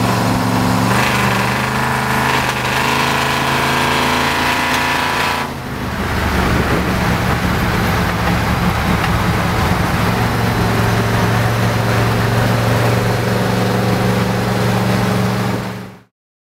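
1973 Ford F100's FE V8 engine droning steadily under road and wind noise, heard from inside the cab while cruising at highway speed. The sound briefly dips and changes about five and a half seconds in, then fades out near the end.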